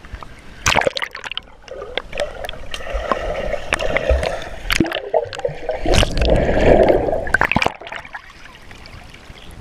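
Swimming-pool water heard through a camera dipped underwater: a muffled rushing and bubbling with many scattered clicks and splashes, dropping away near the end as the camera comes back up.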